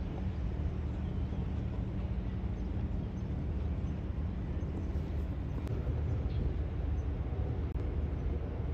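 Steady low rumble of a large motor yacht's engines running in harbour, with no change in pitch or level.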